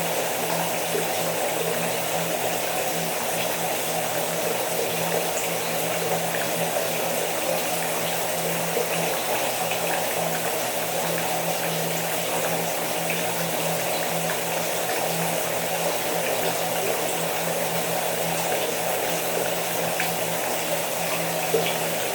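Rain shower falling steadily, an even hiss dotted with small scattered drip ticks, over a steady low hum.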